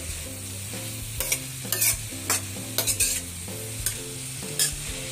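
Shredded cabbage and carrots sizzling steadily in a stainless steel pan as a metal spatula stirs and tosses them, clinking and scraping against the pan about nine times.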